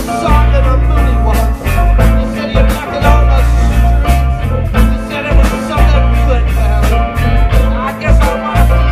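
A live band playing loud, with a heavy bass line, steady drum beats, electric guitar and keyboard.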